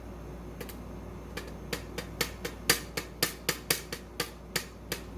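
Sharp little clicks and taps from a pin-tumbler lock being gutted, its pins and parts knocking on a pinning tray: over a dozen quick, irregular ticks, starting about a second in.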